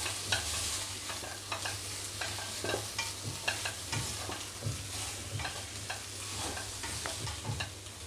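Spatula stirring and scraping around a kadhai as whole hog plums (aamra) and crushed coconut sauté in hot oil, over a steady sizzle. The scrapes and knocks come irregularly.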